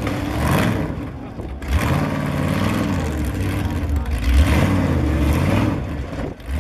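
Ultra4 rock-racing buggy's engine revving in repeated bursts, its pitch rising and falling, as the car crawls up a boulder field.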